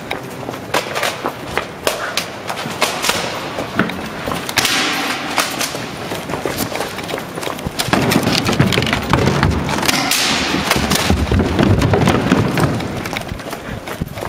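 Handling and firing noise from a Matrix Tactical airsoft shotgun while the shooter moves: a string of sharp clicks and knocks, with thuds of movement. A heavy low rumble, like wind or handling on the microphone, sets in about eight seconds in and eases near the end.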